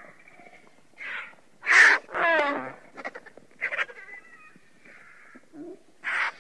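Vultures calling: a string of separate harsh calls, the loudest about two seconds in, followed at once by a falling squealing call, then several short calls and another harsh call near the end.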